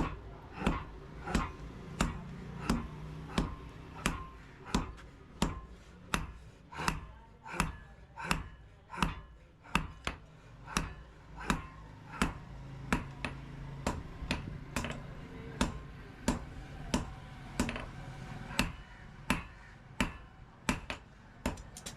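Blacksmith's hand hammer striking steel on an anvil while forging: a steady rhythm of sharp blows, about three every two seconds.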